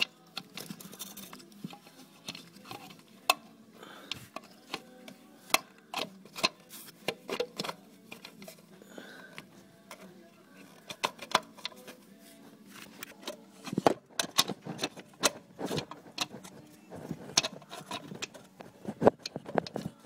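Irregular light clicks, taps and knocks of hands fitting a new distributor cap and lining up its hold-down screws on a Dodge Ram V8, getting busier in the last few seconds.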